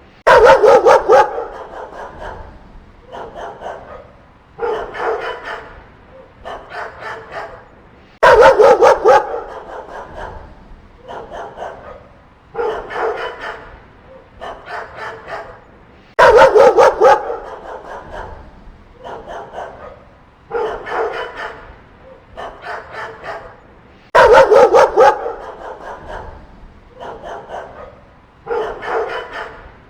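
Dogs barking in quick volleys. About every eight seconds comes a loud burst of rapid barks lasting about a second, with quieter groups of barks in between, in a pattern that repeats evenly four times.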